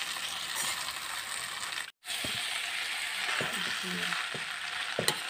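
Egg chow mein noodles and vegetables sizzling in an aluminium kadai, with a metal spatula and fork scraping and clicking against the pan as they are stirred. The sound cuts out briefly about two seconds in.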